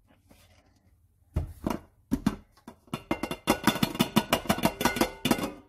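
A few sharp knocks as a metal cake pan is turned over onto a glass serving plate. About three seconds in, background music with quick plucked-string notes begins.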